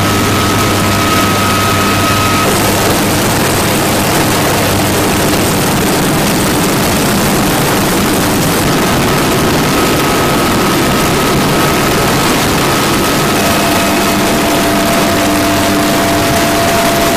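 Military helicopters running at close range: a loud, steady rush of rotor and engine noise with a constant turbine whine.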